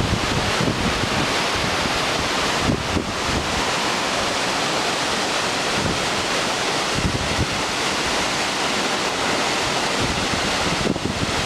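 Waterfall rushing: a steady roar of falling water, with wind buffeting the microphone in low gusts.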